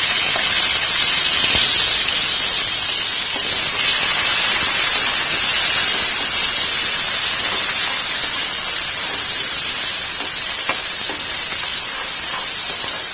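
Small onions (shallots) sizzling loudly in hot sesame oil in a kadai, just added to the tempered mustard seeds. A steady, hissing sizzle that eases slightly toward the end.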